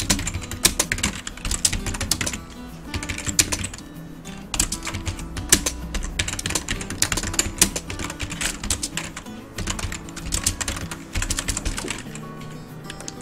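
Computer keyboard typing in quick irregular runs of keystrokes, stopping near the end. Background music with steady low notes plays underneath.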